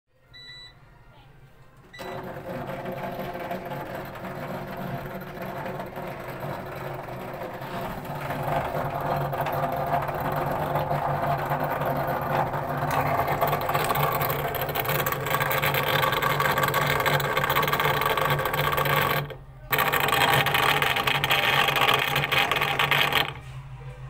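Front-loading washing machine's drain pump running with a loud, harsh mechanical noise and a steady low hum, after a short beep from the control panel. The unbearable noise while draining is the sign of a failing drain pump that needs replacing. The noise drops out briefly about three quarters of the way through and stops near the end.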